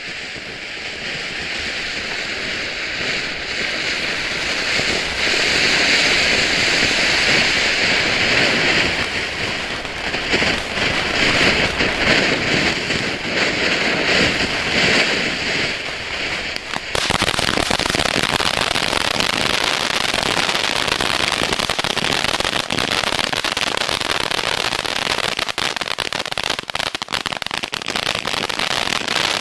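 Ground fountain firework spraying sparks with a steady, building hiss. About seventeen seconds in, the sound changes abruptly to a broader spray full of rapid crackling.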